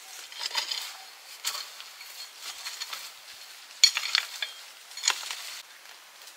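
A metal utensil scraping and clinking against a cooking pan in several separate strokes, over a steady sizzle-like hiss that cuts off suddenly near the end.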